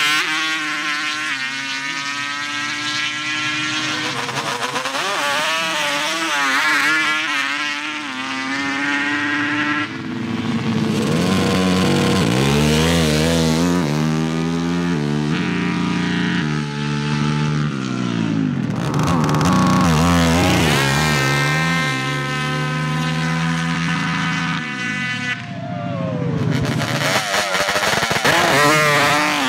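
Unlimited sand drag ATV engines run at wide-open throttle down the strip over several passes. The engine note climbs and drops back in pitch over and over.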